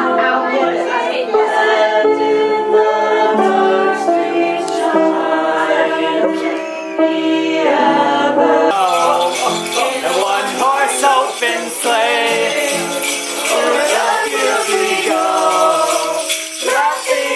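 A group of family members singing a Christmas carol together, with long held notes. About halfway through, a bright jingling rhythm joins in with the singing.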